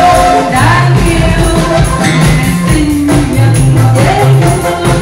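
Live band music with a singer holding and gliding between sung notes over a bass line and a steady beat.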